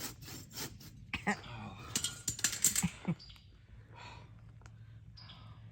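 A blade cutting through thick heavy rubber by hand, with rasping strokes a few times a second, then a cluster of sharp clicks and knocks between about one and three seconds in, before the strokes go quiet and faint.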